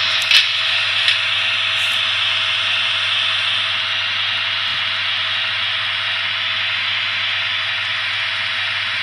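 Steady hissing from the onboard sound of a Trix model Ce 6/8 II 'Crocodile' electric locomotive, with a low hum beneath it and two light clicks about a third of a second and a second in.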